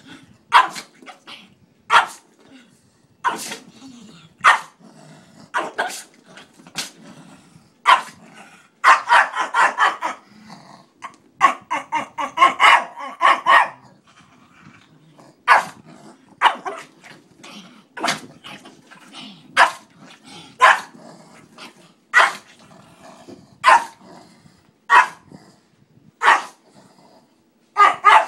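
A small Pekingese dog barking excitedly in play at a ball held in its face. Sharp single barks come about every second and a half, with two runs of rapid barking about ten seconds in.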